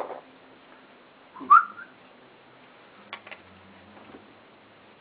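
A pet parrot gives one short whistle that glides upward, about a second and a half in, followed by a few faint clicks.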